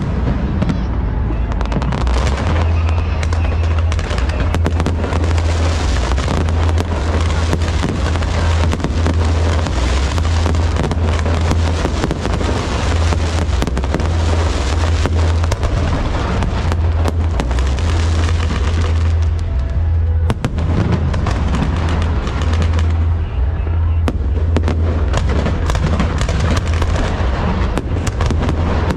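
Fireworks display: aerial shells bursting in dense, continuous volleys with heavy low booms and rapid crackling throughout; the crackle thins briefly about two-thirds of the way in, then picks up again.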